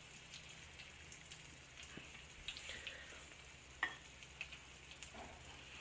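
Hot oil in a frying pan sizzling faintly, with scattered small crackles, as a breaded hellgrammite fries in it. A sharper click about four seconds in.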